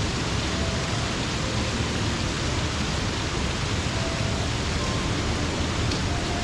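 Waterfall pouring into a mountain stream, a steady, unbroken rush of water.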